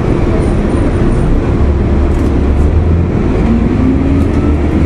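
2004 Gillig Phantom transit bus running, its Cummins ISL diesel engine and Voith D864.3E transmission giving a steady low rumble. A faint whine rises in pitch about three and a half seconds in.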